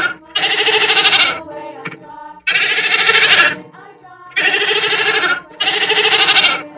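Goat bleating again and again, each quavering bleat about a second long, with background music playing underneath.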